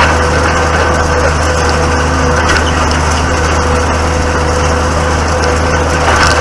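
Tractor engine running steadily: a constant, loud engine drone with a faint steady whine above it.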